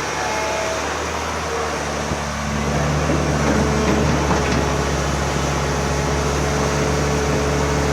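Excavator's diesel engine running steadily under work, a constant low hum; a thin steady tone joins about three and a half seconds in.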